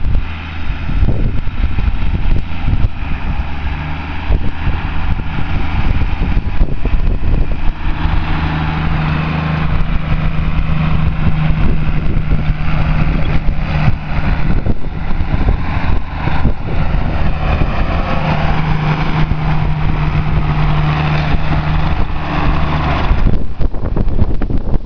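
New Holland TM115 tractor engine running steadily under load while pulling a haybob tedder. It grows louder in the middle as the tractor passes close, then eases off near the end.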